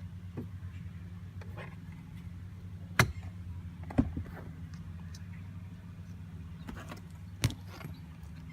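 A steady low hum with three sharp clicks, about three, four and seven and a half seconds in.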